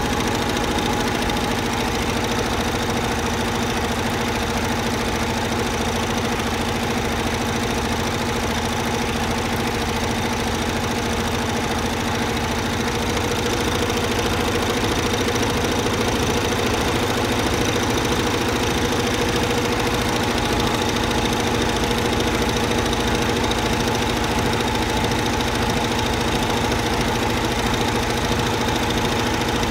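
Multi-head high-speed loop (towel) embroidery machine running and stitching: a steady, unbroken mechanical hum that holds the same pitch throughout.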